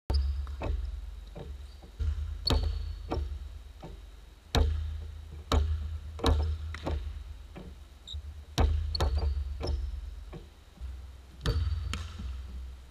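Basketball dribbled hard on a hardwood gym floor: sharp, irregular bounces, one every half second to a second, each ringing out in the big hall.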